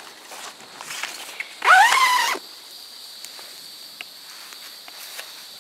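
Steady high-pitched insect drone, with one short call about two seconds in that rises in pitch and then holds, lasting under a second.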